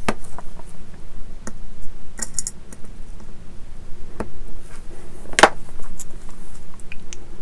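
Small clicks and light rattles of tiny screws and plastic model-kit parts being handled, with a short run of high clicks about two seconds in and one louder knock about five and a half seconds in.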